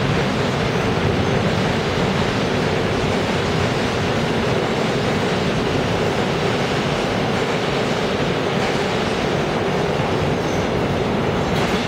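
Korail 1000-series electric multiple unit pulling out along the platform and picking up speed: a steady, loud rumble of wheels on rail and running gear.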